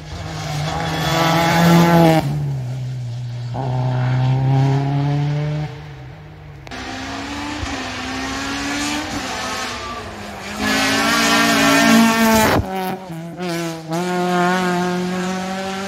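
Race cars on an asphalt sprint course accelerating hard, engines revving up and dropping back as they change gear, over and over. The sound breaks off and changes abruptly a few times.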